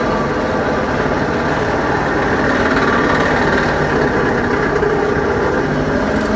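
12V electric winch motor and gear train running steadily under a heavy dead-weight pull, drawing close to 300 amps: a loud, even mechanical drone.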